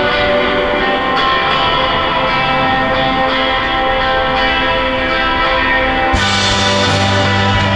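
Background music: sustained chiming guitar tones, with a bass line and brighter percussion coming in about six seconds in.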